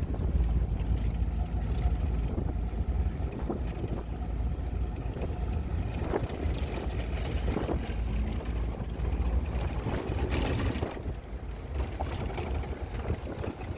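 Moving car heard from inside: a steady low rumble of engine and tyres, with occasional short knocks and rattles.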